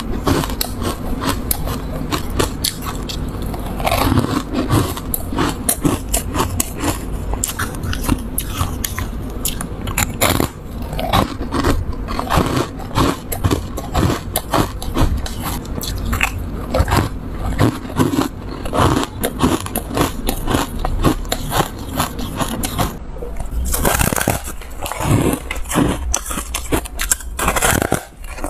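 Bites and chewing of refrozen foam ice: a dense run of short, sharp crunches that goes on without pause.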